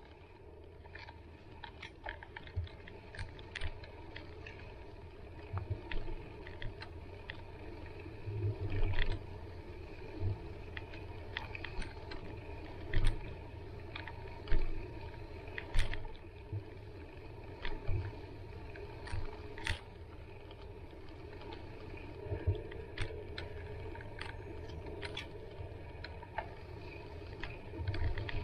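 Bicycle ridden along a dirt forest trail: a steady low rumble of tyres on the ground, with frequent sharp rattles and knocks as the bike jolts over bumps.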